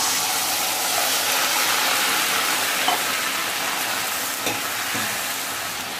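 Milk-soaked semolina hitting hot ghee and caramelised sugar syrup in a steel pan: a steady sizzle that slowly eases off as it is stirred, with a few light knocks of the steel spoon against the pan. The syrup is so hot that it boils up as the cold milky mixture goes in.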